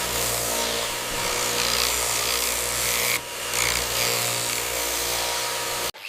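A power tool running steadily over a low hum. It dips briefly about three seconds in and cuts off abruptly near the end.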